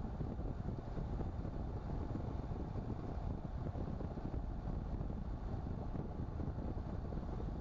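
Steady low rumble of a car on the move, heard from inside the cabin: tyre, road and engine noise.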